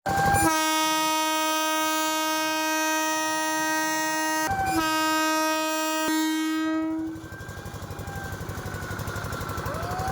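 Train horn sounding two long blasts, the first held about four seconds and the second about two, followed by a quieter fast, even rattling.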